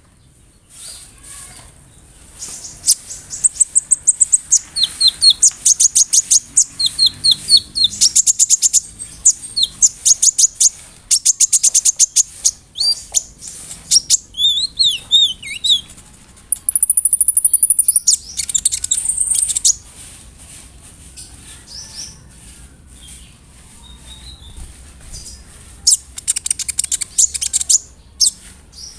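Kolibri ninja (konin) sunbird singing: rapid, high ticking rolls and chattering trills, broken by short wavering phrases and one steady high whistle about halfway through, with a quieter stretch before another burst of trills near the end.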